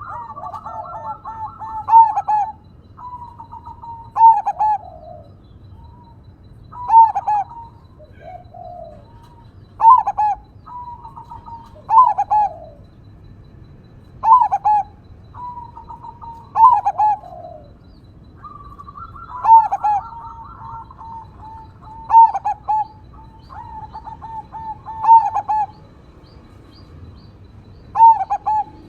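Zebra dove (perkutut) cooing: short phrases of several rolling notes repeated about every two to three seconds, with other birds chirping faintly in the background.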